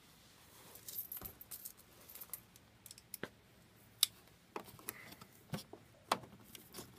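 Keys jingling and scattered sharp metallic clicks as a key ring is handled and an ignition key is fitted into the lock cylinder of the truck's spare-tire hoist access.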